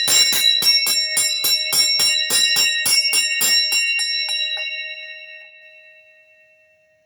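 A metal bell tuned to D♯5 rung rapidly, struck about four to five times a second. Near the end the strikes stop and the bell rings on, fading away.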